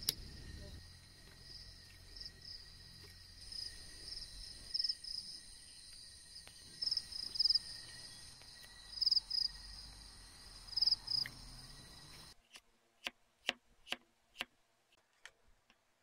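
Crickets and other night insects calling: a steady high trill with louder chirping pulses now and then. About twelve seconds in the chorus cuts off abruptly, followed by a run of sharp clicks.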